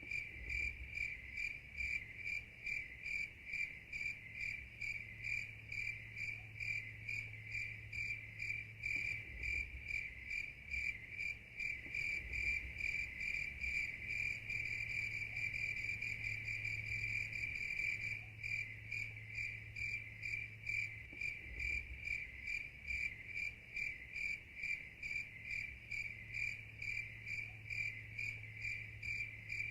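A night insect chorus: steady, high-pitched chirping that pulses about two to three times a second, without a break.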